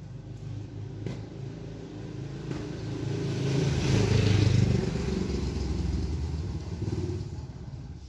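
A passing motor vehicle, its engine growing louder to a peak about four seconds in and then fading away.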